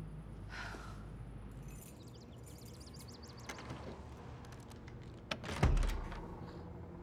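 Quiet room tone, then a short knock followed by a single heavy, low thud about five and a half seconds in.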